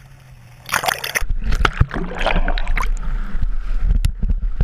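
Water splashing and sloshing hard against a helmet-mounted camera sitting at the water's surface, starting suddenly about a second in after a faint steady hum, with heavy low rumble on the microphone.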